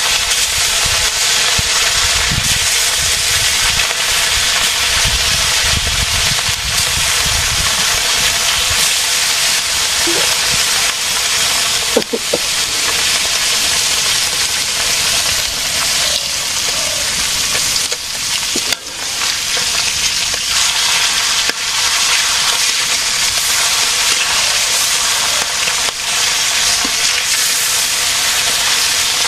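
Fish frying in hot oil in a pan, a loud steady sizzle, with a couple of sharp knocks from the pan or utensil about twelve and nineteen seconds in.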